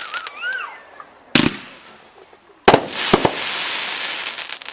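Consumer 1.4 firework cake (Bright Star's 14-shot Raging Radical) firing: two sharp shot bursts about a second and a half apart, each followed by a couple of seconds of crackling.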